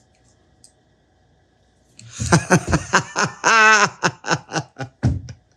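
A man laughing with delight: after a short quiet, a quick run of chuckles about two seconds in, with a drawn-out high, wavering laugh in the middle.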